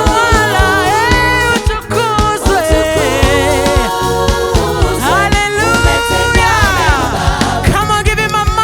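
Live gospel praise and worship music: singers holding long, sliding notes over a band with a steady beat.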